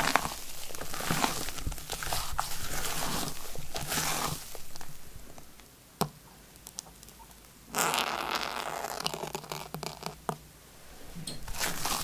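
Silicone spatula folding meringue through cocoa sponge batter in a glass bowl: soft, wet squishing and scraping strokes. There is a quiet stretch with a single click near the middle while vegetable oil is poured in, then the folding strokes resume.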